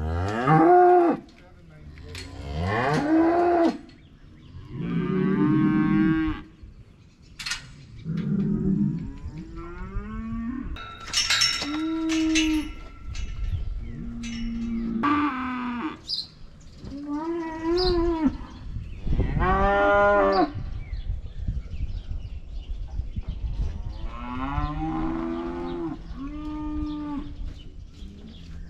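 Cattle mooing over and over: a dozen or so drawn-out calls of about a second each, some of them overlapping.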